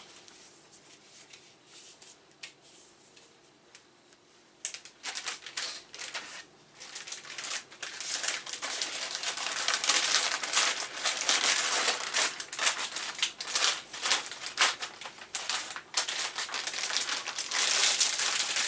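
Packaging being handled around a circuit board: a few faint clicks, then from about five seconds in, dense crinkling and rustling with many small clicks as it is packed away.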